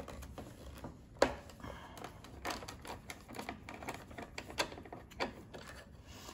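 Screwdriver turning out the small screws of a Onewheel's rear bumper: scattered light clicks and ticks of metal on metal, with a sharper click about a second in.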